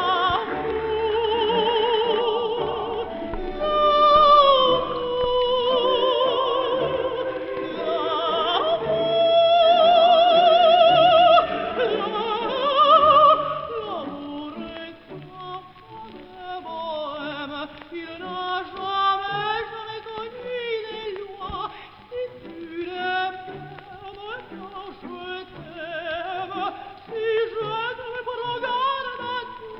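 Operatic singing in the film's music score. Long held notes with a wide vibrato fill the first half. From about halfway the singing turns to shorter, quicker phrases and is softer.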